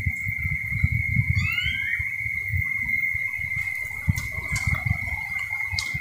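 A steady, high, unbroken insect drone over a low rumble of wind buffeting the microphone, with a bird's short rising call about a second and a half in.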